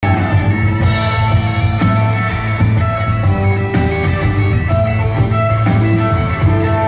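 Live band music: bagpipes play a melody of held notes over a steady low drone, with electric guitar, upright bass and drums.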